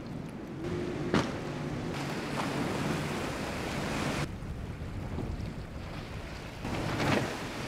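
Powerboats running fast through rough inlet chop: rushing spray and wake noise with a faint engine drone under it, and a sharp hull slap about a second in. The sound changes abruptly twice as one boat gives way to the next.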